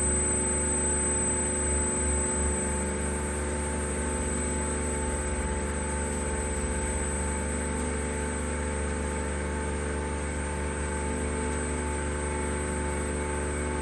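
Vacuum pump running steadily with a constant hum while it pulls a vacuum on a sealed mixer tank.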